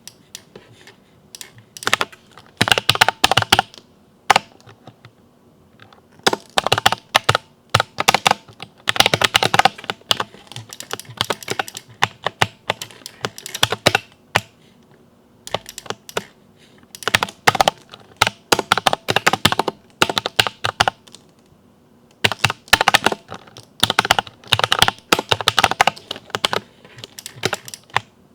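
Typing on a Ducky mechanical keyboard with Cherry MX Silver linear switches: rapid runs of keystroke clacks in bursts of a few seconds, with short pauses between them.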